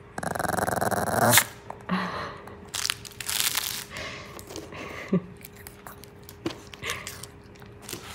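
Maltese dog giving a rasping growl-grumble for about a second at the start, then scuffling and crunching as it mouths and moves its toys on the mat.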